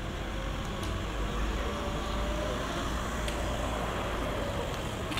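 Road traffic: a motor vehicle running, a steady low noise with a faint even engine hum.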